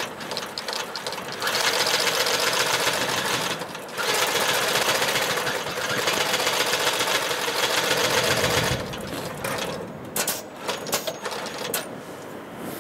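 Long-arm heavy-duty twin-needle sewing machine stitching thick leather, running steadily for a couple of seconds, stopping briefly, then running again for about four and a half seconds before halting. A few sharp clicks and handling noises follow once it stops.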